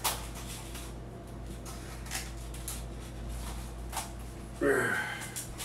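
Light clicks and taps of paper plates being picked up and handled at a table, over a steady low hum. A brief vocal sound comes a little before the end, the loudest thing here.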